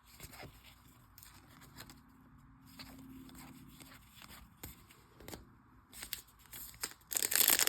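Light handling of trading cards and their packaging, with scattered soft clicks and scrapes. Near the end comes a loud crinkling tear as a foil card pack wrapper is ripped open.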